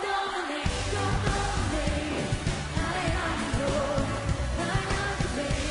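Live pop music from a full band with a woman singing. The bass and beat drop out for a moment at the start, then come back in.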